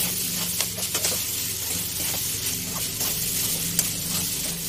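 Poha hissing and sizzling in an aluminium kadai as it is stir-fried, with a metal spatula scraping and clicking against the pan now and then.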